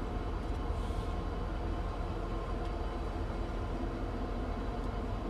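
Steady low engine rumble with a faint even hum, heard from inside a truck cab.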